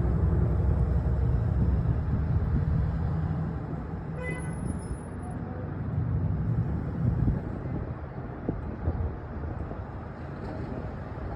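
Low vehicle rumble that fades over the first few seconds, with a brief high tone about four seconds in and a few faint clicks near the end.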